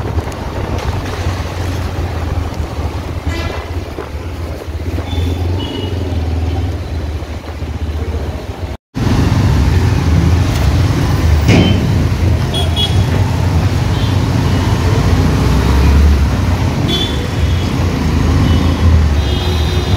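Street traffic during a two-wheeler ride: a steady low rumble of engines and wind, with several short horn toots. The sound drops out for a moment about nine seconds in and comes back louder.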